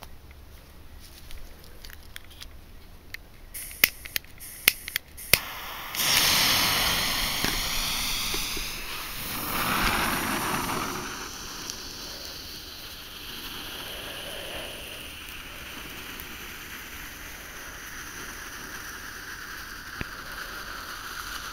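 Weco 'Gold und Silber Regen' class 1 firework fountain. A few sharp clicks come first. About six seconds in it catches with a sudden, loud spraying hiss, which eases after about five seconds into a steadier, quieter hiss as it burns.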